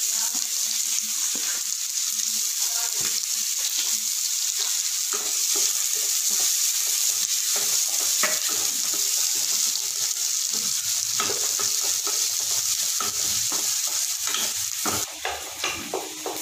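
Chopped onions sizzling in hot sesame oil in a kadai, with a wooden spatula scraping and stirring them from about five seconds in. The sizzle drops away shortly before the end.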